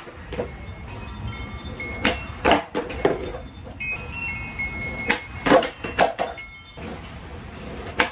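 Skateboard deck clacking and slapping on pavement in a string of sharp knocks during tray flip attempts. Wind chimes ring with thin high tones between the knocks, and wind rumbles low on the microphone.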